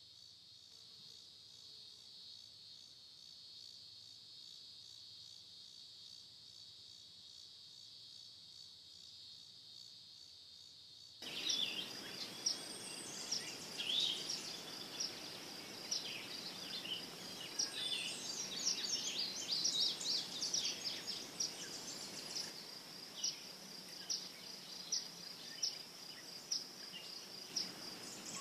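A steady, even, high-pitched trilling chorus of night insects. About eleven seconds in it cuts abruptly to a louder outdoor ambience, with many short chirps of small birds over a steady insect hum and a broad wash of noise.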